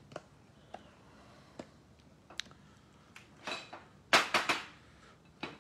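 Trading cards and hard plastic card holders handled on a tabletop: scattered light plastic clicks and taps with a brief rustle, then a louder cluster of three or four quick clacks about four seconds in.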